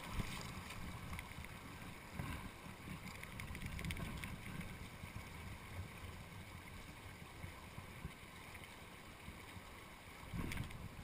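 Steady rush of a shallow mountain torrent running over stones, with wind rumbling on the microphone.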